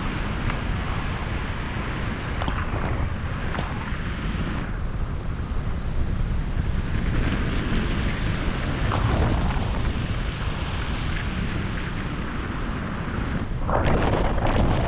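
Strong wind buffeting the microphone: a dense low rush that surges and eases and grows louder near the end.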